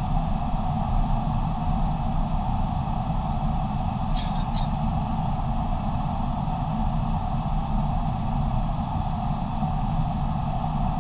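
Steady airflow and engine noise inside an airliner cockpit during the descent, with two brief clicks about four seconds in.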